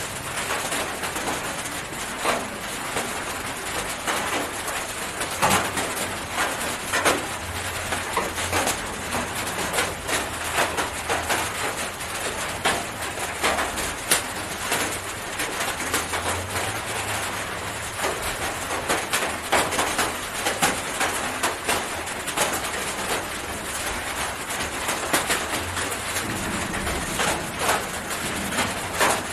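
Handling noise from a hen being held on a lap and hand-fed: many small clicks and rustles scattered over a steady hiss.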